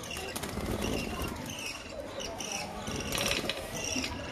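Budgerigars chirping and chattering in short, quick, repeated chirps, with a short flurry of wing flapping a little after three seconds in as a wet bird flutters up from its bath.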